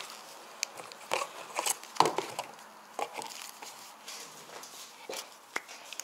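Gloved hands handling electric-bike kit cables and plug connectors: irregular rustling with scattered sharp clicks and taps, the loudest about two seconds in.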